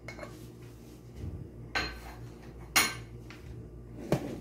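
Glass bowls and a wooden spoon clinking and knocking as chopped cucumber is tipped and scraped from a small glass bowl into a large glass mixing bowl. There are a few sharp clinks and knocks, and the loudest comes near the three-second mark.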